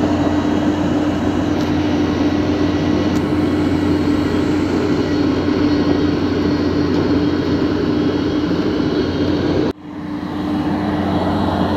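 Steady engine-like machine drone with a constant hum. It cuts out abruptly about ten seconds in and fades back up.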